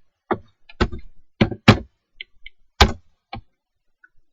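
Computer mouse and keyboard clicking: about eight short, sharp clicks, unevenly spaced, as commands and a value are entered in CAD software.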